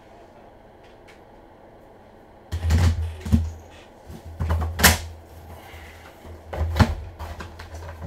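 Quiet for about two and a half seconds, then a series of sharp knocks and bumps with a low rumble underneath, about four loud ones over five seconds: things being handled and set down on the desk close to the microphone.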